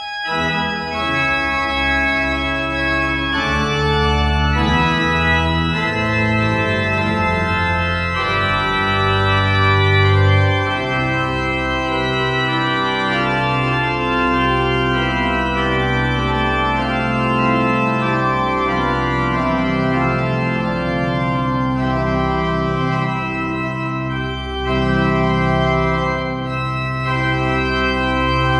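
Church organ played in held, many-voiced chords over a strong, deep bass line.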